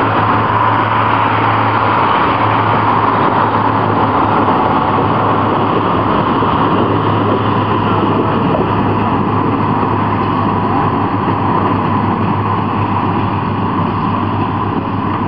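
A vehicle running steadily: a loud, constant rushing noise over a low engine hum, unchanging throughout.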